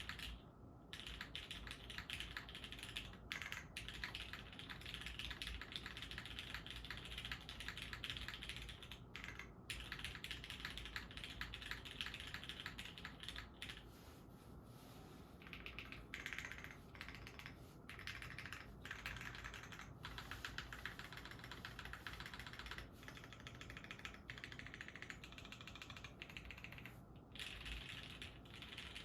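Fast, steady typing on a Time 60 custom mechanical keyboard with lubed Retool Brown tactile switches in an O-ring mount with a carbon-fibre half plate, under GMK keycaps. There are brief pauses a few times.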